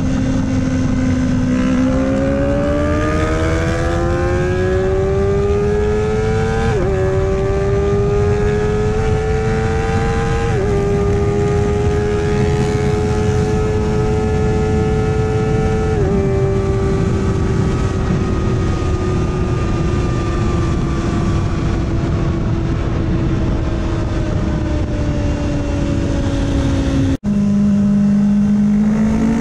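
Kawasaki ZX-4RR inline-four with a full Yoshimura exhaust under a hard third-gear roll-on, its note climbing steadily with three quick upshifts, each a short dip in pitch, about 7, 11 and 16 seconds in. It then slowly drops as the bike eases off, with wind rushing over the helmet-level microphone throughout. Near the end the sound cuts out for an instant and a second roll-on begins from a lower note and starts climbing.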